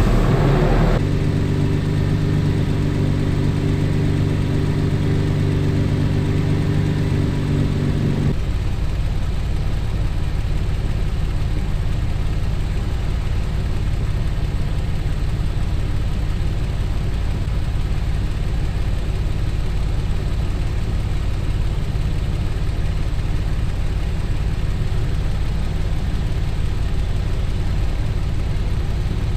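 Toyota FJ Cruiser's 4.0-litre V6 just started and running at a steady idle. About eight seconds in, the sound changes abruptly to a duller, lower hum as the idle continues.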